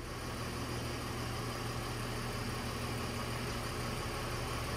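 A vehicle engine idling steadily, an even low hum that does not change.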